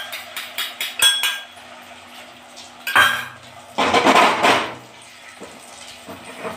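Metal spatula clinking and scraping against a black kadai as an omelette fries in it: a quick run of light clinks at the start, a sharp scrape about three seconds in, and a longer scraping rush about a second later.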